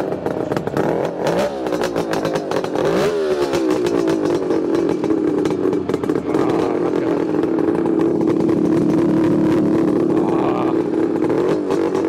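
Suzuki GT380's air-cooled two-stroke three-cylinder engine running through its aftermarket exhaust pipe. The throttle is blipped a few times, revs rising and falling, in the first three seconds or so, then it holds a steady fast idle.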